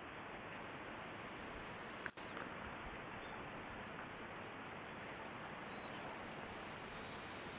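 Steady, faint outdoor background noise with a few faint, short high chirps, and a brief click about two seconds in.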